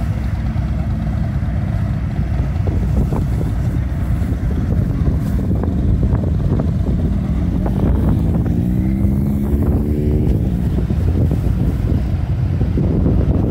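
Harley-Davidson touring motorcycle's V-twin engine idling with a steady, lumpy low rumble. About eight seconds in, an engine note rises for around two seconds and then drops away.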